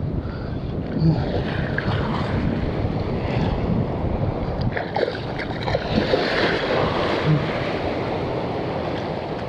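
Steady wind buffeting the microphone over the wash of waves along the shore, with a few faint ticks.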